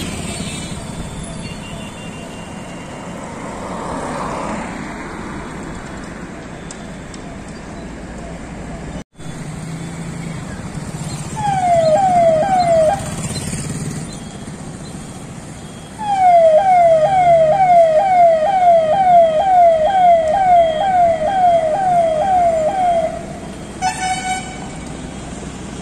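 Vehicle siren sounding in quick falling sweeps, about two a second, from a jeep crossing an otherwise empty junction: a short burst about halfway through, then a longer run of several seconds, over a light hum of distant traffic. A brief steady horn-like tone sounds near the end.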